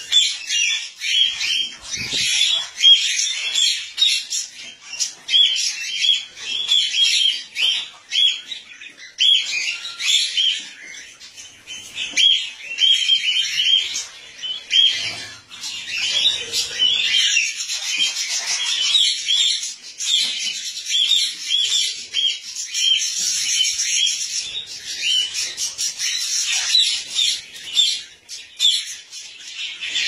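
Cockatiels chirping and squawking in short, high calls repeated several times a second, with no break.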